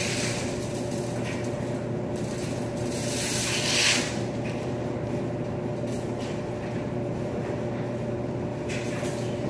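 Steady electrical hum of laundry machines running, holding a few fixed tones, with a brief hissing swell about three and a half seconds in.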